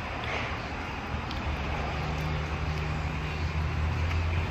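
Low steady mechanical hum over an even background noise, growing a little louder after about a second and a half.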